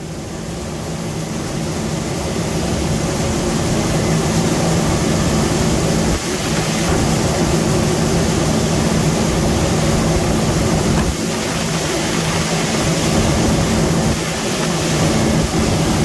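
Combine harvester running steadily while harvesting corn: a loud, continuous machine drone with a low hum. It grows louder over the first few seconds, then holds steady.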